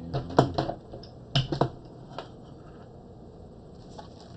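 Comic books being handled and shuffled on a desk: a few sharp paper slaps and taps, the loudest about half a second in and a quick cluster of three about a second and a half in, then only faint handling.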